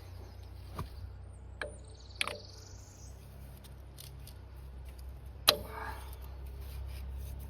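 Sharp metal clicks and knocks of hydraulic quick couplers being handled and pushed together, the loudest a single snap about five and a half seconds in. A bird chirps briefly between one and three seconds in.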